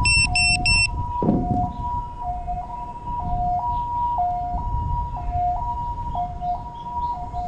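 A two-tone electronic alarm switching back and forth between a higher and a lower pitch, with about four quick high beeps in the first second. A steady low rumble of wind or handling noise runs underneath.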